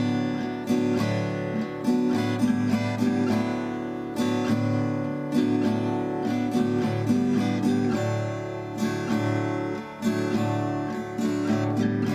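Background music: acoustic guitar strumming and picking, with notes struck at a regular pace.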